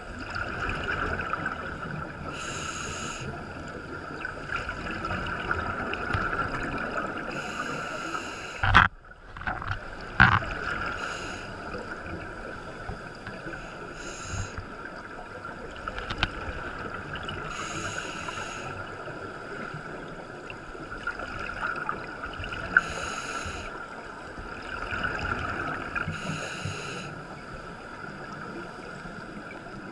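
Scuba regulator exhalation bubbles as heard through an underwater camera, coming in bursts every four to five seconds over a steady underwater hiss. Two sharp knocks about nine and ten seconds in.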